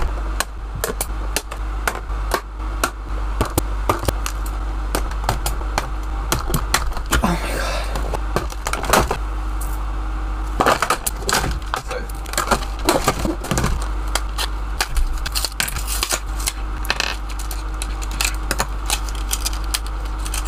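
Unboxing a fashion doll: scissors snipping the cardboard box, then plastic packaging crinkling and clicking as the doll and her small plastic accessories are freed. Irregular clicks and crackles throughout, over a steady low hum.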